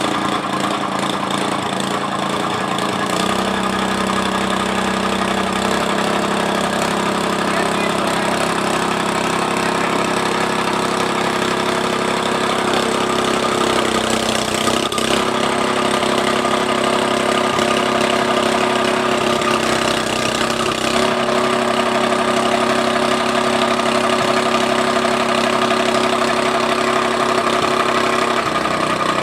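Small engine of a tamping rammer running steadily, its speed shifting a few times.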